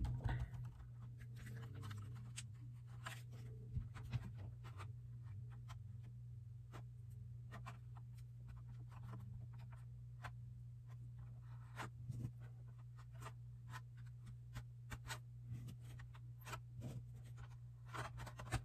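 Faint, scattered clicks and light scraping as a fingertip spreads silicone caulk inside a thin polycarbonate RC car body and the flexible shell is handled, over a low steady hum.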